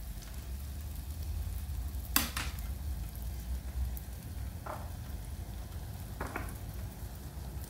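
Tofu slices sizzling in hot oil in a frying pan, a steady frying hiss. A sharp click about two seconds in and two fainter clicks later, from the slices being handled at the pan.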